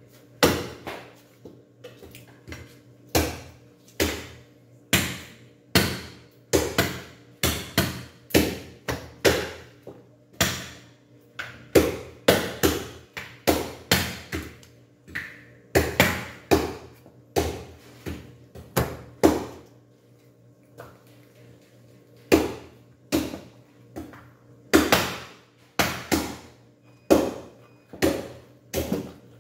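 Butcher's knife knocking repeatedly against a thick wooden chopping block while cutting pork, about one to two sharp knocks a second, with a short pause about two-thirds of the way through.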